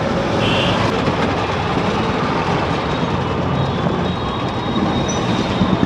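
Auto-rickshaw's small engine running as it drives along a street, with steady road and wind noise through its open sides.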